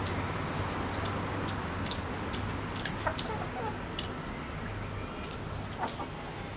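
Chickens clucking a few times around the middle, over a steady low hum, with sharp clicks of chopsticks against porcelain bowls.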